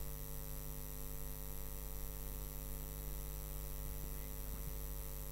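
Steady electrical mains hum from the stage PA system with its microphones open: a low, unchanging buzz with a ladder of overtones and a light hiss above.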